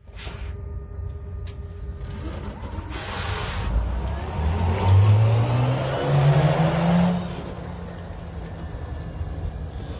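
Volvo FE Electric, a three-axle battery-electric truck, driving past and accelerating away: tyre and road noise with a low electric-motor hum that rises in pitch between about four and seven seconds in. A short hiss comes about three seconds in.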